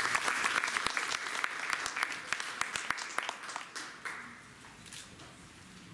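Audience applauding, dense at first, then thinning out and dying away about four to five seconds in.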